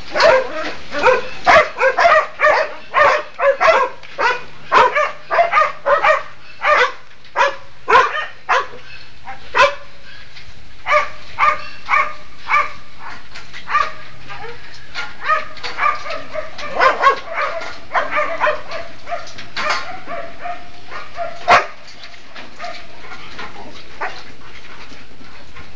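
Dogs barking rapidly and repeatedly, the barks coming thick and overlapping at first, then thinning to scattered barks that stop a few seconds before the end.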